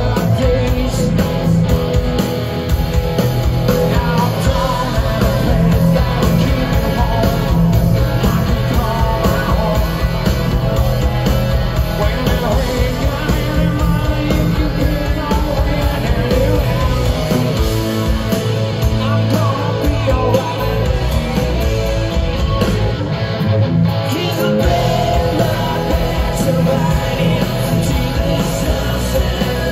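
Live rock band playing a song: electric guitars and bass with a male lead singer at the microphone, loud and continuous.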